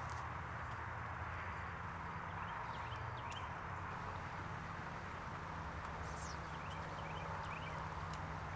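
Steady background hum and hiss with no clear events, and a few faint, short high chirps scattered through it.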